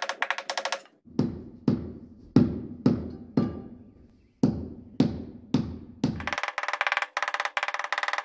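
Percussive music. A fast rattling figure gives way to separate deep drum-like hits about two a second, and the rattling figure returns about six seconds in.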